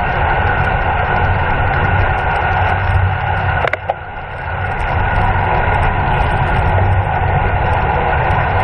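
Wind rushing over the microphone of a camera on a racing bicycle at speed: a steady roar with a strong low rumble. About three and a half seconds in there is a sharp click, and the roar dips briefly before building back.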